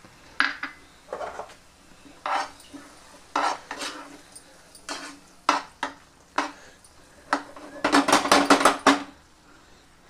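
A spatula stirring and scraping thick mashed eggplant in a non-stick frying pan, in separate strokes, then a quick run of about seven strokes near the end.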